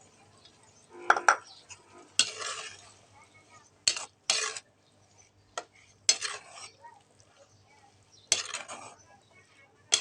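A spoon stirring in a cooking pot, scraping and clinking against the pot in short, irregular strokes, about seven in all.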